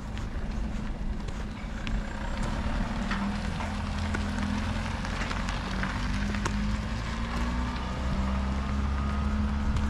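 Steady low rumble of an engine running, with a faint, slowly rising whine in the second half.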